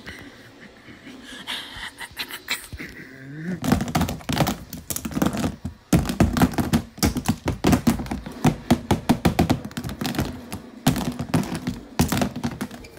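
Toys being knocked against each other in a mock fight: quick, irregular clacking taps and knocks, several a second. They start about three and a half seconds in and get louder about halfway through.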